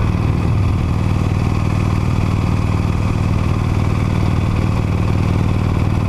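Harley-Davidson Iron 883 Sportster's air-cooled Evolution V-twin running at a steady cruising speed through its stock muffler. The low 'du-du-du-du' exhaust beat comes through clearly, without the primary-chain rattle, because the primary chain has just been re-tensioned.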